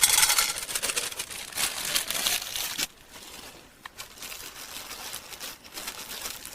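Lima beans being poured into a Dutch oven: a dense rattling rush for about three seconds, then much quieter with a few scattered clicks.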